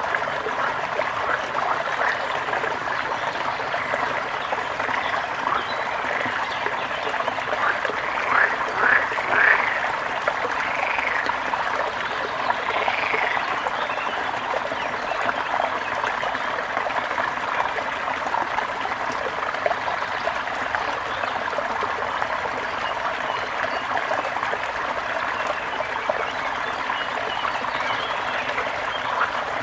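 A brook running steadily over stones. Between about 8 and 13 seconds in there are a few short calls that rise and fall in pitch, from a frog or a bird.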